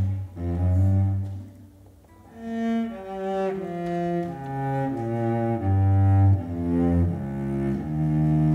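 Cello being bowed: two long low notes, a short pause, then a slow phrase of held notes stepping up and down.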